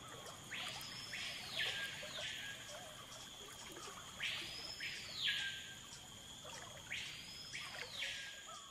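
Tropical forest ambience: a rasping animal call, each about a second long, rising and then falling, comes three times a few seconds apart, over a faint steady high hum.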